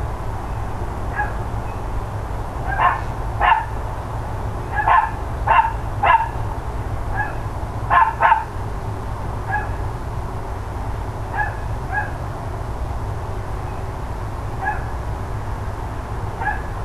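Dogs barking in irregular single and paired barks, closely spaced and loudest through the first half, then sparser and fainter. A steady low rumble runs underneath.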